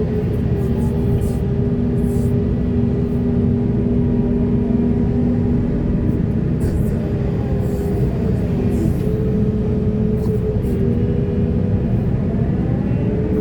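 Heavy diesel earthmoving machinery running steadily under load, with a high steady whine over the engine rumble that glides up and down a couple of times, and scattered sharp clanks.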